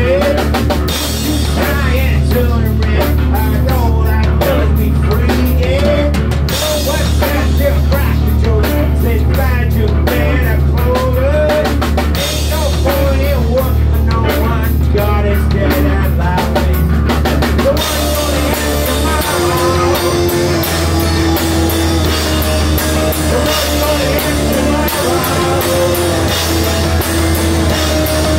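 Live rock band playing: a man singing over electric guitars and a drum kit. About two-thirds of the way in the vocal line stops and the guitars carry on with sustained notes over the drums.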